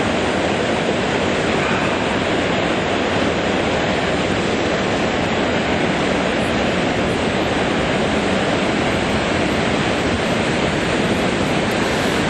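Steady, loud rush of whitewater: a river rapid pouring over a rocky ledge just ahead.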